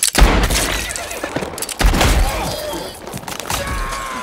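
Two pistol gunshots about a second and a half apart, each with a deep low thud and a long ringing tail.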